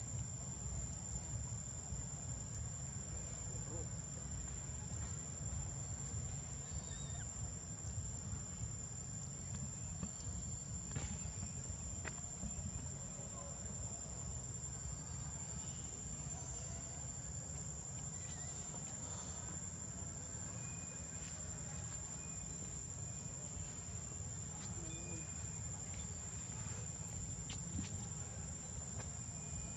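Insects droning on one steady high-pitched note, over a constant low rumble.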